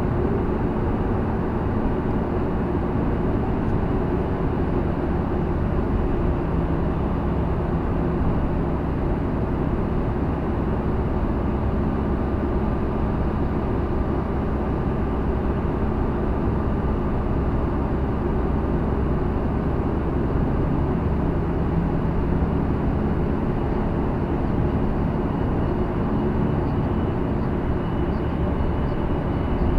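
Steady road and engine noise of a car driving through a road tunnel, heard from inside the cabin: a constant low rumble with a faint hum.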